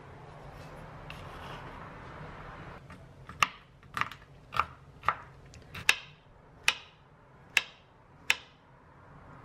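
Kitchen knife striking a wooden cutting board while nuts are chopped and a banana is sliced. There are about eight sharp knocks, spaced a little under a second apart, starting about three seconds in.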